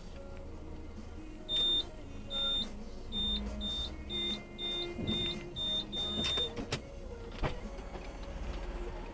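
Steady low hum of a car cabin, recorded by a dashcam, with a run of about nine short, high-pitched beeps, roughly two a second, followed by two sharp clicks.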